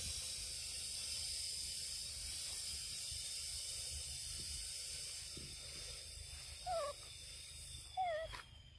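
Steady high-pitched hiss of forest insects, with a thin tone slowly sliding down near the end. Two short, wavering squeaky animal calls come about seven and eight seconds in, and the hiss cuts off just after the second.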